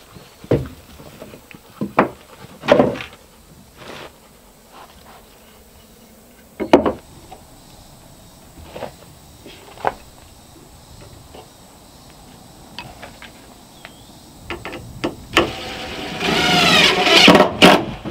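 Scattered light knocks and taps as wooden trim is handled and pressed into place, then near the end a cordless drill whirring for about two seconds as it drives a screw through the trim, its motor pitch rising and falling.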